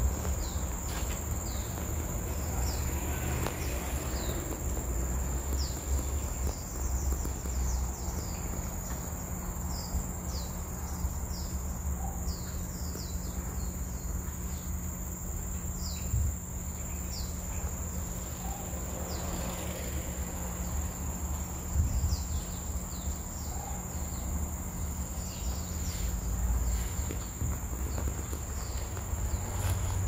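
Steady high-pitched insect drone, with many short falling chirps coming and going above a low rumble.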